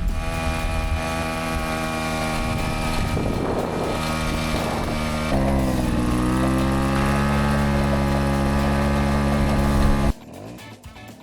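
Vintage Piaggio Ciao moped's 49cc two-stroke single-cylinder engine running steadily as it is ridden. About five seconds in, its pitch dips and climbs back up, and near the end the sound cuts off suddenly.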